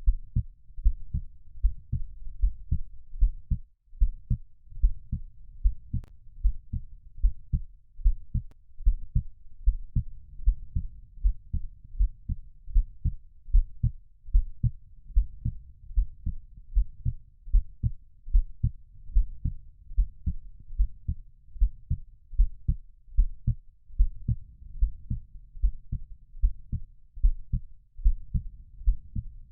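Heartbeat sound: a steady, even rhythm of low thumps with a faint low whoosh between beats.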